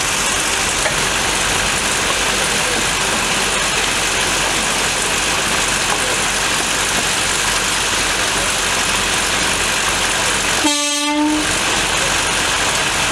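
Steady loud hissing throughout. About eleven seconds in comes one short locomotive whistle toot, less than a second long, and the hiss briefly drops out around it.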